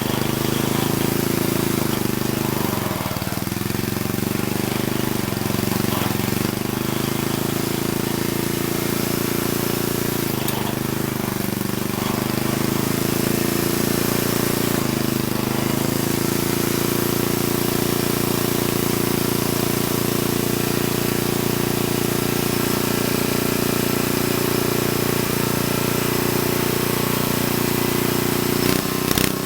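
Briggs & Stratton single-cylinder engine of a Troy-Bilt Horse tiller running, its pitch sagging briefly three times in the first half and then holding steady. The dips are the engine taking load as the seized tines are engaged and free up.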